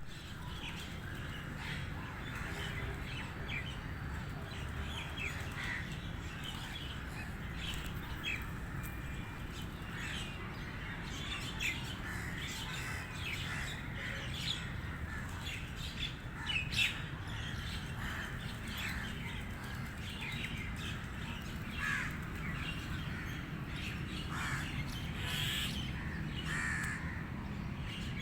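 Birds chirping and calling, many short calls coming one after another, over a steady low background rumble.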